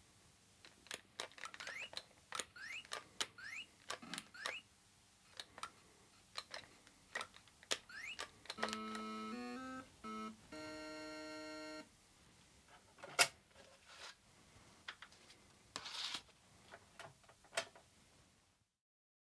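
Atari computer game sound effects, faint: a few quick rising chirps, then a stepped run of buzzy electronic notes and a held electronic tone about a second long, amid scattered clicks of the joystick being worked.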